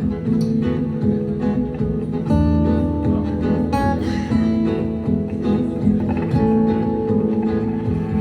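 Live band playing the instrumental opening of a lyrical song, led by strummed acoustic guitar; low bass notes come in about two seconds in.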